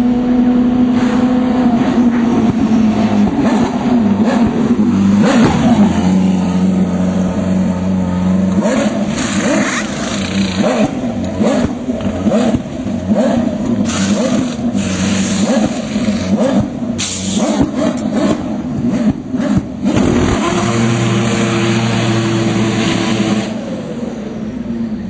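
Race car engine running close by, revving up and down so its pitch rises and falls, settling at steady revs for a couple of seconds about six seconds in and again near the end. Short sharp bursts of noise cut in over it repeatedly.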